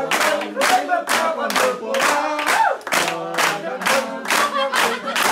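A group clapping in time, about three claps a second, with voices singing along.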